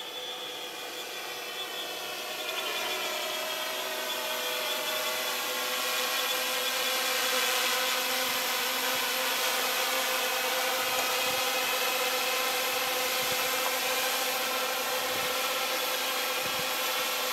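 Quadcopter's motors and propellers buzzing with a steady multi-toned whine as it flies back in, getting louder over the first several seconds as it comes closer, then holding steady with slight shifts in pitch.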